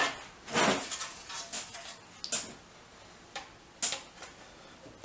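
Thin hand-formed aluminium sheet panel being handled and offered up against a metal former: a louder handling rustle about half a second in, then several sharp light ticks and clinks as the sheet touches the buck.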